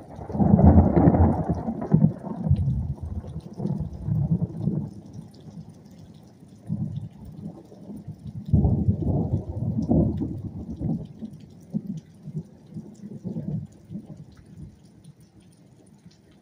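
Strong storm wind gusting across the phone's microphone in uneven surges, loudest in the first two seconds and again around the middle.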